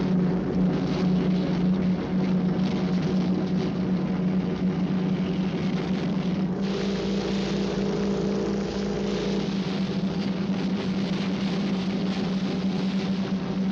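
Radial piston engine of a single-engine monoplane running at full power in a steady drone on the takeoff roll, over a rushing hiss.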